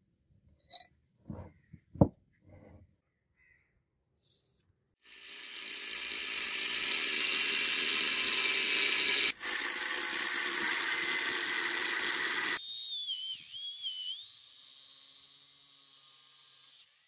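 A few sharp knocks, then an angle grinder's cut-off disc cutting into a solid steel hammer head. The cutting noise is loud and steady from about five seconds in, with a brief break near nine seconds. It then turns quieter, leaving the motor's high whine, which dips and recovers as the disc bites.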